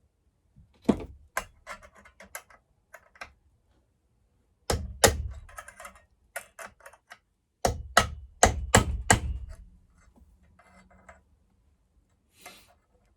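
Metal hammer taps on a punch, driving a new anti-vibration buffer deeper into a chainsaw handlebar mount: a few scattered knocks, a pair about five seconds in, then a quick run of about seven strikes.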